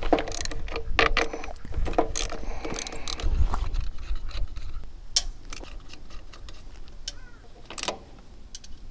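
Irregular clicks, clinks and knocks of small hardware and a plastic switch housing being handled as an old battery disconnect switch is worked loose, over a low rumble. The clicks are busiest in the first few seconds and thin out toward the end.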